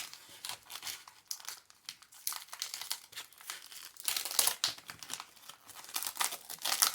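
Foil Pokémon booster-pack wrapper crinkling in the hands and being torn open, in a run of irregular sharp crackles.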